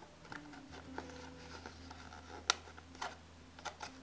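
Stiff puzzle-lamp pieces rustling and clicking as they are handled and hooked into each other, a handful of sharp clicks with the sharpest about two and a half seconds in, over faint background music.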